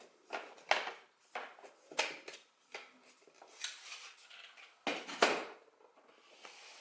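Hard plastic PC case parts, a front panel and a 3D printed grill, clicking and knocking as they are handled and fitted together: a string of irregular clacks with a sharp pair about five seconds in.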